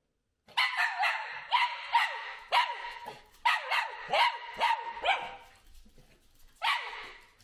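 Small dog barking excitedly, about ten quick high-pitched barks in a run, then a pause and one more bark near the end.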